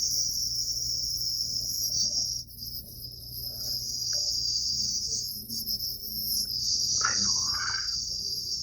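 Compressor nebulizer running: a steady low motor hum under a continuous high hiss of air driving the medication mist.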